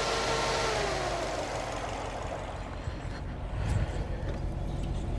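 Subaru WRX's flat-four engine idling with the hood open, during a coolant combustion-leak test for a suspected head gasket leak. A higher whine drops in pitch and fades about a second in.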